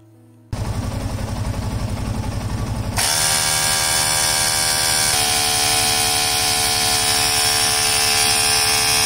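A 12-volt mini tyre inflator's piston compressor starts about half a second in with a rapid pulsing buzz, then steps up louder about three seconds in and runs steadily as it pumps up a tyre.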